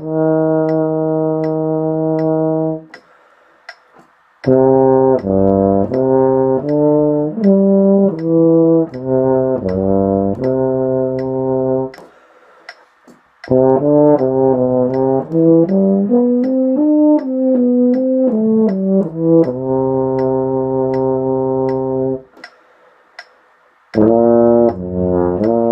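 Euphonium playing phrases of moving notes, with a long held note near the start and another about three quarters of the way in, and three short rests. A faint tick sounds about twice a second.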